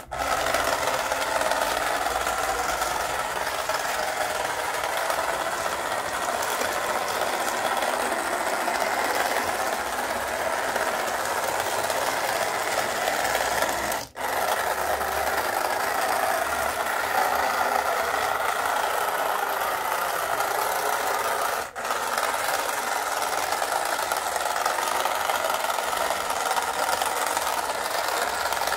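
Small electric gear motors of a remote-control cardboard toy bulldozer running with a steady whir and rattle, broken by two brief dropouts, about halfway and about three-quarters through.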